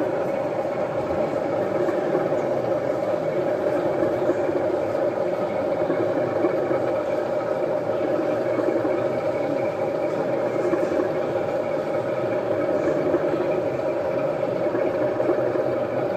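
Model trains running on exhibition layouts against the steady background noise of a busy exhibition hall.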